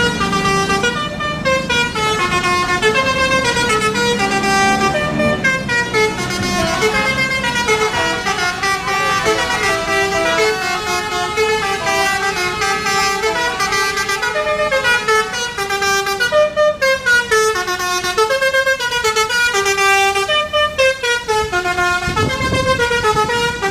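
Indonesian bus 'telolet basuri' musical horn playing a long melody of quick notes that step up and down without a break.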